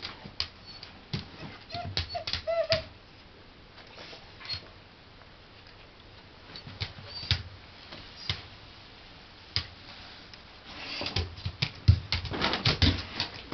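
A dog's claws clicking and tapping on a wooden floor as it moves about, with a few short high whines about two seconds in. The clicking comes thicker and faster near the end.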